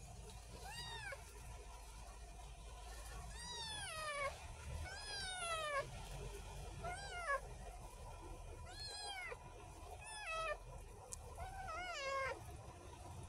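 Kitten meowing about seven times, high-pitched calls that rise and fall in pitch, some drawn out, over a faint low rumble.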